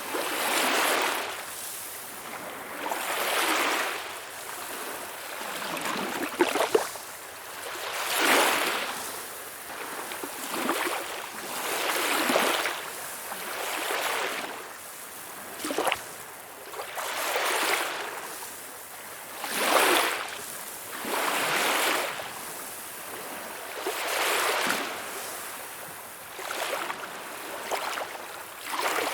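Small waves splashing and washing in, a noisy swash that rises and falls about every two seconds, with a couple of sharper slaps.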